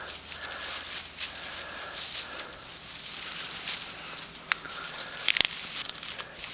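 Steady high-pitched hiss of insects, with a few soft clicks and rustles of plants being handled.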